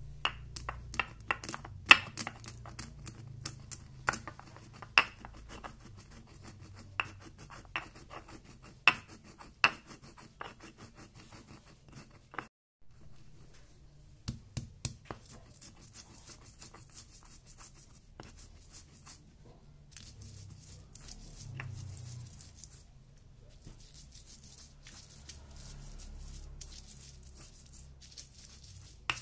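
Stone pestle working on a flat stone mortar (cobek and ulekan): sharp cracking clicks and knocks as whole white peppercorns are crushed, then a steadier scraping, rubbing grind as the spices and chilies are worked into a paste.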